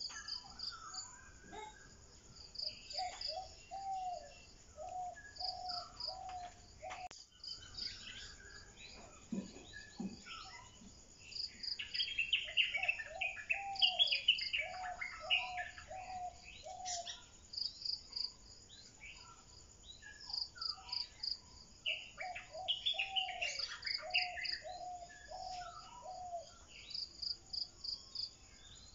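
Birds singing and calling, with insects chirping. A low phrase of five or six short notes repeats three times, over busier higher chirping and a steady train of high-pitched pulses.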